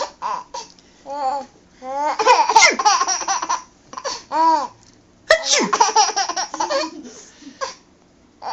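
A baby laughing in several bouts of high, gliding laughter, with short breaths between them.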